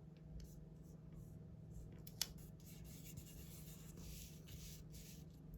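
Faint rubbing and rustling of paper and stickers being handled and pressed onto planner pages, with one short sharp click a little over two seconds in.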